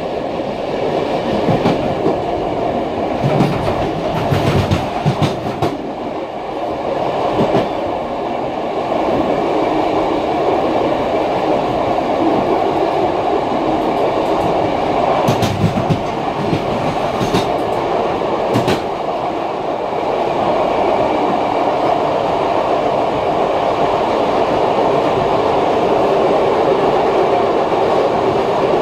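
A PKP TLK passenger train running on the rails: a steady rumble of wheels on track. A few sharp knocks come in the first several seconds and again a little past the middle, as the wheels run over rail joints or points leaving the station.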